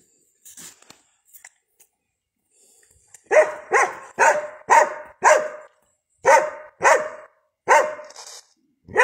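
Cadaver search dog barking: a quick run of about ten sharp barks, beginning about three seconds in, with a short pause midway.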